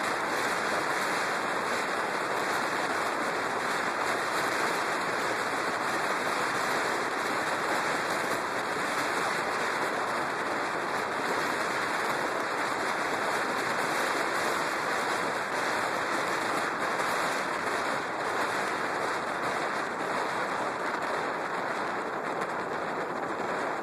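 Wind rushing over a motorcycle-mounted camera's microphone at road speed: a steady, even rush with no clear engine note.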